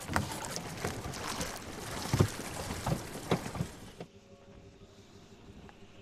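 Wind and sea noise aboard a sailboat, with several sharp knocks from work on deck, the loudest about two and three seconds in. About four seconds in it cuts to a much quieter stretch with only a faint steady tone.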